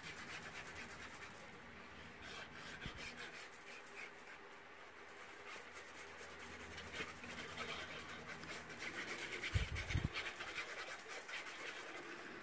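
Soft scratching and squeezing as the fine tip of a plastic liquid-glue bottle is drawn over cardstock, with two low bumps, about three seconds in and about ten seconds in.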